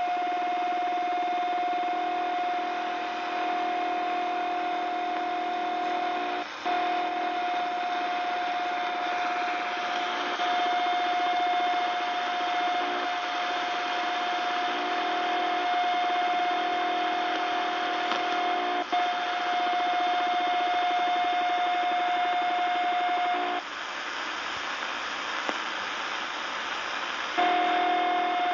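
CB radio receiving an unidentified signal on 27.145 MHz: a steady high tone over hissing static, with a lower buzzing pattern that switches on and off. The tone cuts out briefly twice, then drops for about four seconds near the end, leaving only static.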